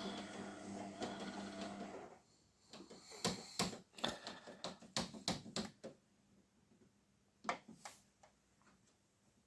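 A steady electrical hum with a buzz cuts off abruptly about two seconds in, followed by a quick, irregular run of sharp clicks and taps, with two more clicks a little later.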